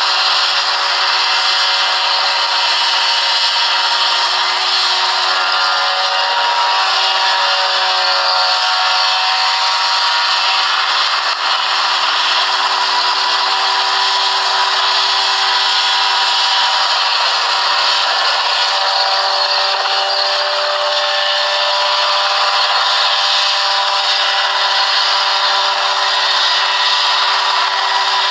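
Open-frame single-seat ultralight helicopter in a low hover: its small piston engine and rotor run steadily at a constant level, the engine note shifting slightly in pitch now and then.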